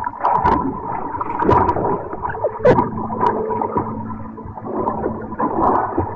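Water splashing and churning from a swimmer's butterfly stroke, with a few sharper splashes and a steady hum underneath.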